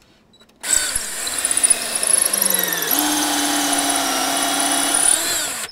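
Cordless drill drilling into a door jamb at the marked latch position. It starts about half a second in and runs steadily for about five seconds, its pitch dipping and then steadying about halfway through, and it cuts off suddenly near the end.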